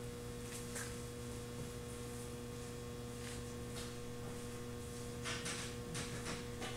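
Steady electrical mains hum, with faint brushing and rubbing noises as a hammer head is picked up off a board and turned over in the hands, mostly in the second half.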